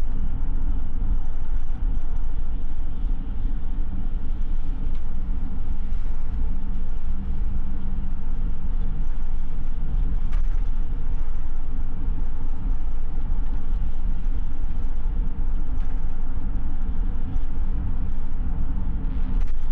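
A car driving along the road: a steady low rumble of engine and tyre noise.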